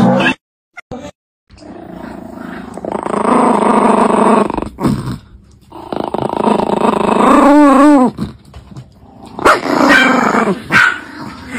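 Chihuahua growling steadily with a chew stick in its paws, easing off briefly around five seconds in, with a wavering up-and-down note near the middle and a few shorter growls near the end.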